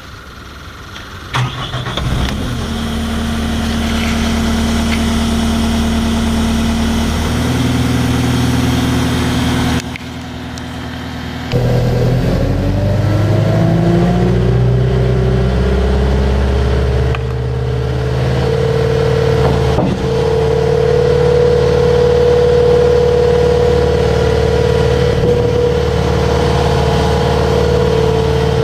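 Full-scale skid steer's engine starting about two seconds in and then idling. About halfway through it revs up in a smooth rising pitch and holds at a steady higher speed.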